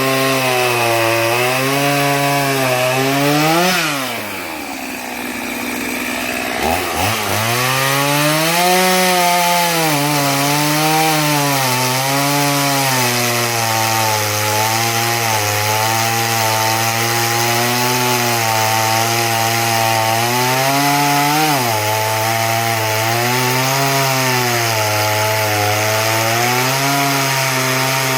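Tekna chainsaw running, its pitch rising and falling again and again as it is throttled. About four seconds in it winds down, then it speeds back up about seven seconds in and runs on, with another quick rise and drop near twenty-one seconds.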